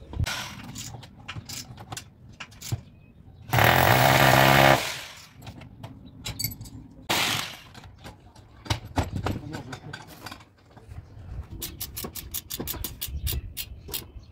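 A handheld electric drill runs for about a second, amid clanks and rattles of the steel mounting channel and its bolts. Near the end comes a quick run of sharp clicks.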